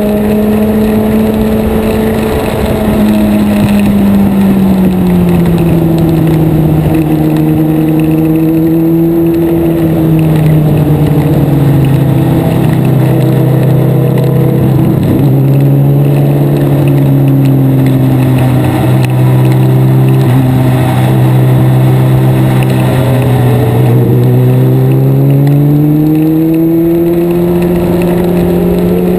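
Race car's engine heard close up from an onboard camera. Its revs fall over the first several seconds, stay low and steady through a long middle stretch, then climb again near the end.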